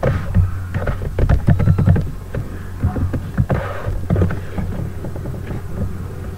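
Computer keyboard typing: a run of quick, irregular key clicks, dense for the first two seconds and then sparser, over a steady low hum.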